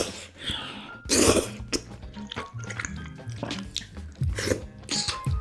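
A person slurping a big mouthful of thick noodles in red sauce: a loud wet slurp about a second in and another near the end, with smaller wet mouth sounds between, over background music.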